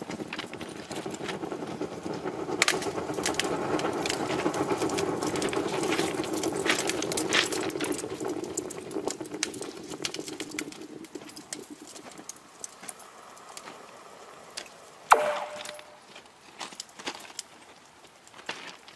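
Thermite charge burning in a rail-welding crucible, giving a steady crackling hiss that fades after about eleven seconds. A single sharp metallic clank comes near the end.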